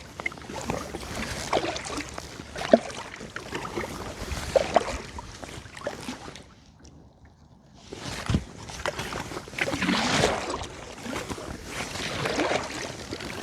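Kayak paddling on calm water: the paddle blades dip and splash, water drips and sloshes, with a few light knocks. It goes nearly quiet for about a second and a half just past the middle, then the strokes pick up again.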